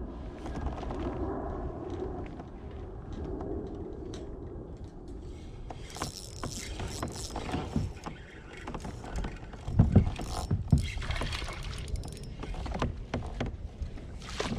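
Water splashing and knocking against a kayak as a small bass is reeled in and landed, with two heavy thumps about ten seconds in.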